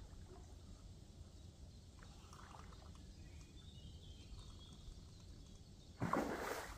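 A hooked carp splashing hard at the water's surface while being played on the line, one sudden splash about six seconds in, after a few seconds of faint background.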